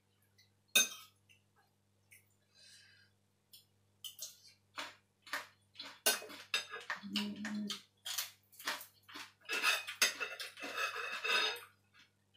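Metal spoon and tongs clinking and scraping against a bowl while tossing a noodle salad, in irregular clusters of sharp clicks that grow busier near the end.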